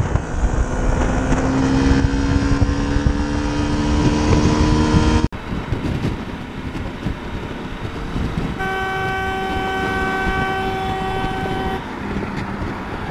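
Motorcycle engine pulling with a slowly rising pitch under heavy wind noise on a helmet microphone. About five seconds in it cuts to highway road and wind noise, and a vehicle horn sounds in one long steady blast of about three seconds.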